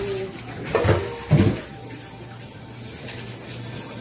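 Cleaver knocking twice on a wooden chopping board while cutting up boiled chicken, the two knocks about half a second apart, over a steady hum and hiss.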